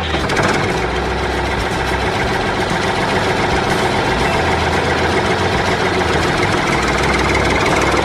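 The drive of a miniature DIY bulldozer running steadily, with a fast rattle.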